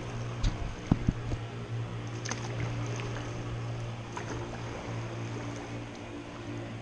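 Kayak paddling inside a concrete lock chamber: paddle strokes and water lapping, with a few sharp knocks about a second in, over a steady low hum.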